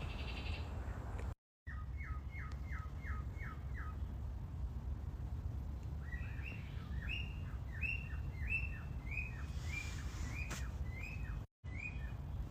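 A bird calling at night: a quick run of about six short chirps, then from about halfway a steady series of downward-sweeping notes, about one and a half a second, over a steady low rumble.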